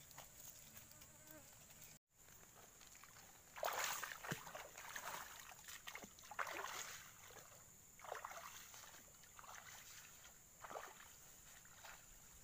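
Footsteps rustling and crunching through dry palm fronds and grass in uneven bursts, starting a few seconds in, over a steady high-pitched insect drone.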